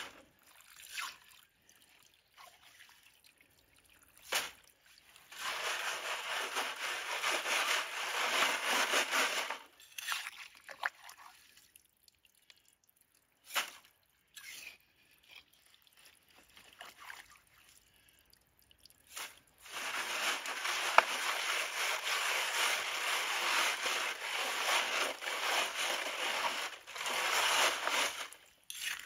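A trowel-load of gravel drops into a water-filled gold sieve with a sharp knock, then two long spells of water sloshing and swishing as the gravel is washed and rubbed through the sieve's mesh in a plastic tub, with a few short knocks in between.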